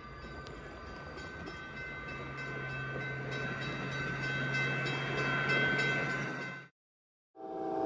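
LEGO train running along plastic track: a steady motor whine with regular clicks of wheels on track, growing louder as it passes close, then cutting off abruptly about two-thirds of the way through.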